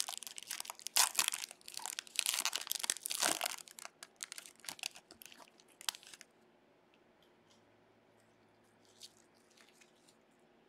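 Plastic-foil baseball card pack being torn open and its wrapper crinkled and crunched for about six seconds. After that, near silence with a few faint ticks as the cards are handled.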